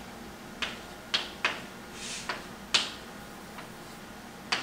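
Chalk writing on a blackboard: about six sharp taps as the chalk strikes the board, with a brief scratchy stroke between them.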